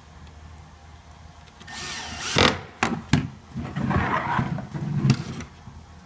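Cordless drill driving a screw into a cedar hive panel in a short, loud burst about two seconds in. Sharp clicks and a stretch of clattering, scraping handling noise follow.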